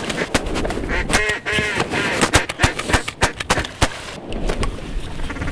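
Duck quacks and honks, a run of short curved calls, with many sharp cracks and clicks mixed in.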